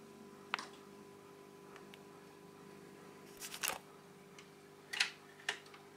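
Low steady electrical hum from the vintage Multison stereo receiver with its volume turned up, broken by a few sharp mechanical clicks as the receiver and turntable controls are handled: one about half a second in, a short cluster around three and a half seconds, and two more near five seconds.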